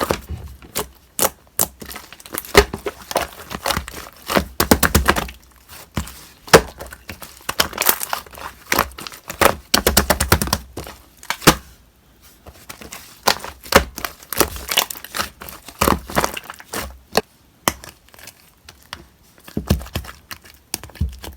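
Slime being squeezed, stretched and poked by hand, making dense runs of crackling clicks and pops, with brief pauses in between.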